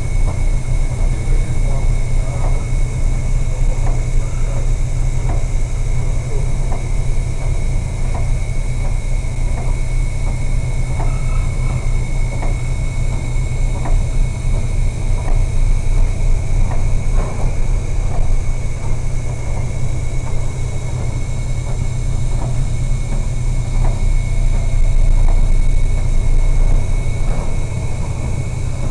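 Storm wind and heavy seas around a cargo ship: a steady, loud low rumble of wind and breaking waves, with a faint high whine, swelling briefly near the end as a big wave breaks alongside.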